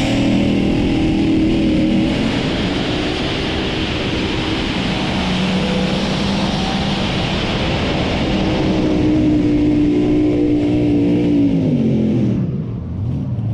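Light modified pulling tractor's engine held at high revs through a pull, pitch climbing at the start and holding for about twelve seconds, then dropping away near the end as the throttle comes off.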